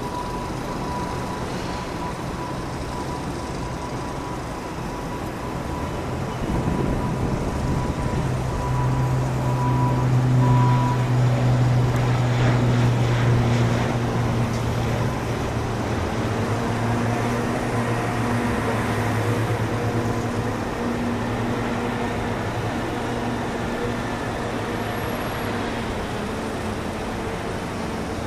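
ATR 42-600 turboprop taking off: its two Pratt & Whitney PW127M engines and six-blade propellers at takeoff power, with a steady low propeller drone. The sound swells about six seconds in and is loudest as the aircraft lifts off. It then fades slowly as the plane climbs away.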